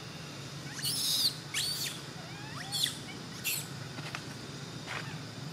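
Young long-tailed macaque squealing: about five short, high-pitched squeaks, some bending up and down in pitch, in the first three and a half seconds.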